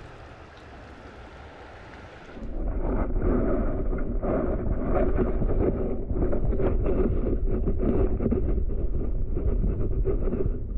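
Flowing river water heard from underwater, muffled and dull: a steady rush and rumble that comes in suddenly about two seconds in, after a faint hiss of water above the surface.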